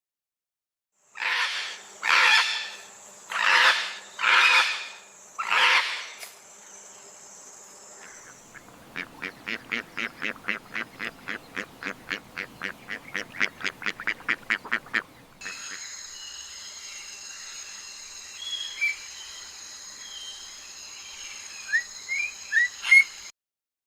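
Farm ducks calling: five loud calls about a second apart, then a fast, even run of quacks at about five a second. Near the end, short bird chirps over a steady high-pitched whine.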